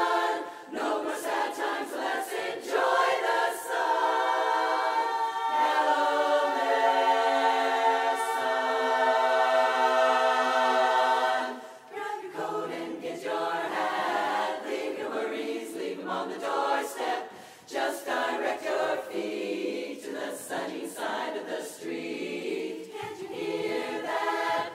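Women's barbershop chorus singing a cappella in close harmony. About four seconds in they hold one long chord for several seconds that cuts off abruptly near the middle, then go on in shorter phrases.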